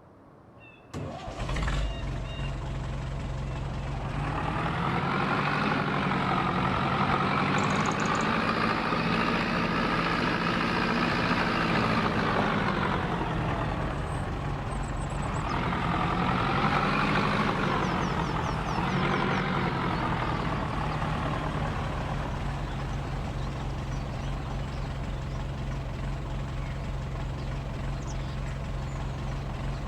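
A large farm vehicle's engine starts about a second in and runs steadily. A higher whine swells and fades twice over it, as the revs go up and come back down.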